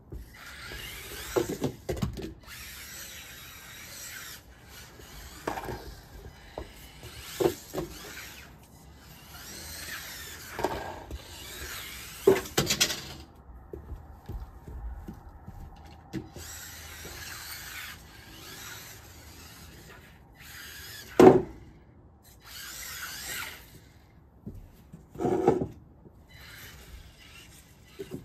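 Losi Micro-B micro RC buggy's electric motor and drivetrain whining in spurts as it is driven on and off the throttle, with sharp knocks as it hits and lands on the wooden deck and plywood ramps; the loudest knock comes about 21 seconds in.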